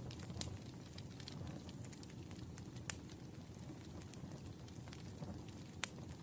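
Wood fire burning: a low steady rumble with scattered sharp crackles and pops from the burning logs, two louder pops about three seconds in and near the end.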